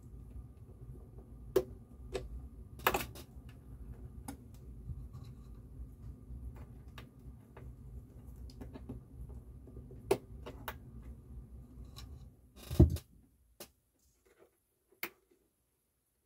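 Small metal parts and a screwdriver clicking and knocking against the underside of a turntable chassis during reassembly, in scattered single taps. The loudest knock comes about thirteen seconds in, when a low background hum stops, and a few faint ticks follow.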